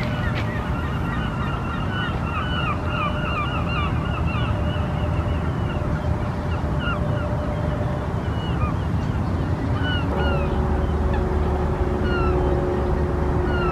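A flock of geese honking: many quick overlapping calls for the first several seconds, then thinning to scattered calls, over a steady low background rumble.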